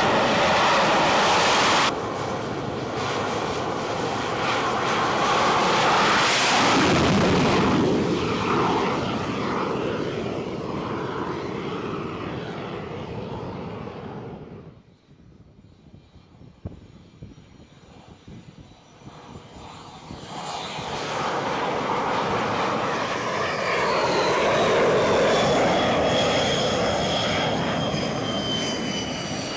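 Jet aircraft engines on an aircraft carrier's flight deck: loud, steady jet noise that swells and fades, drops away suddenly about halfway through, then builds again. Near the end a high turbine whine slides down in pitch.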